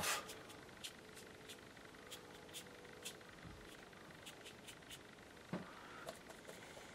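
Faint dabs and scratches of a watercolour brush working paint onto paper, heard as a scattering of soft, irregular ticks, with one duller knock about five and a half seconds in.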